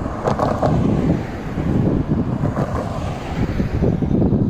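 Wind buffeting the microphone in gusts, mixed with a car driving past over the crossing.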